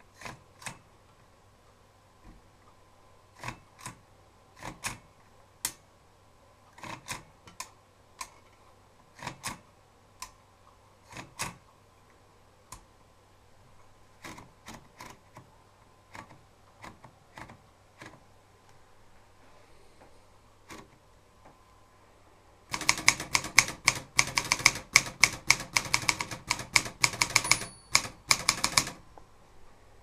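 A 1960 Brigitte portable typewriter: scattered single clacks and clicks of its mechanism for about twenty seconds, then a fast run of loud keystrokes lasting about six seconds near the end.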